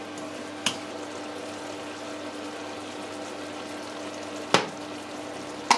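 Chicken simmering in soy sauce and vinegar in a wok, a steady sizzle and bubble, with a utensil knocking against the wok three times, loudest a little past halfway.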